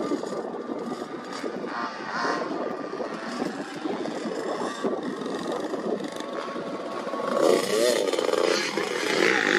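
Motocross dirt bike engines running, with an engine revving up and down about three-quarters of the way through.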